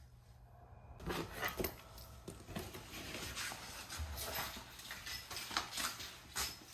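Boston terrier breathing noisily through its nose in short, irregular sniffs and snuffles, with small rustles.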